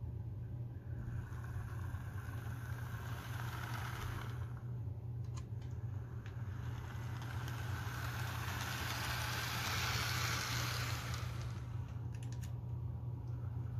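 Bachmann Southern Mountain model steam locomotive running along the track: a steady whir of its electric motor and gears with wheels on the rails, growing louder and fading twice as it passes, over a steady low hum.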